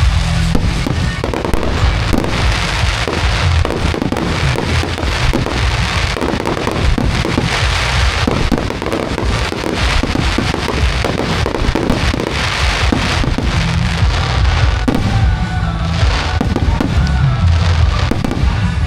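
Fireworks bursting in a rapid, dense barrage with crackling, over music playing through loudspeakers.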